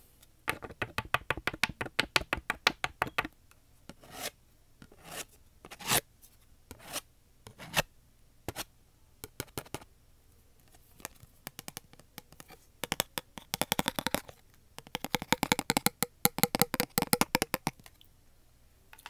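Close-miked ASMR trigger sounds: fast crackly clicking and scratching in two long bursts, one starting about half a second in and one running from about 13 to 18 seconds, with single sharp clicks scattered between.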